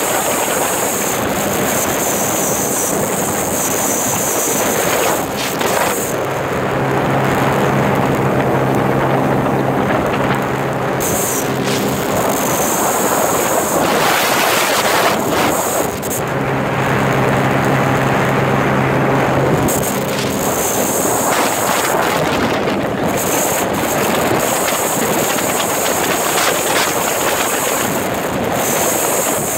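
Wind rushing over the microphone and water hissing past a Sea-Doo Spark jet ski running flat out, with the steady drone of its Rotax 900 ACE three-cylinder engine coming through clearly twice for several seconds.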